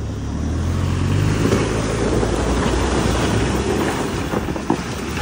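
Pickup truck's engine working hard under load as it climbs a muddy, rocky slope, its tyres churning and crunching over mud and loose stones. The rumble builds about a second in and holds, with a sharp knock near the end.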